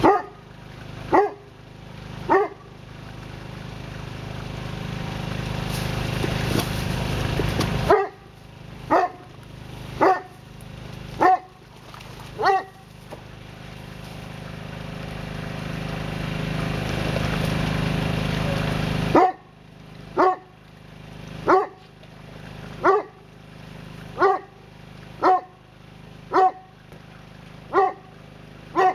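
Newfoundland dog barking excitedly: single sharp barks about a second apart, in three runs broken by pauses of several seconds.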